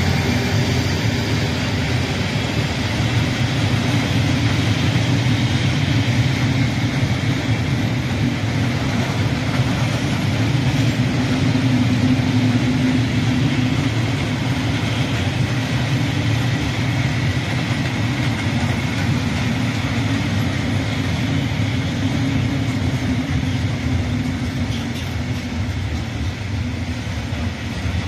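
Loaded coal hopper wagons (Falls type) of a freight train rolling past, a steady low rumble of wheels running on the rails.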